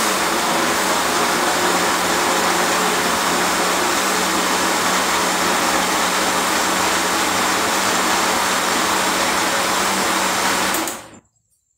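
Countertop electric blender running loud and steady with a constant hum, grinding corn kernels into a thick mash, fed a little at a time so as not to overload and burn out its motor. It is switched off about a second before the end and winds down quickly.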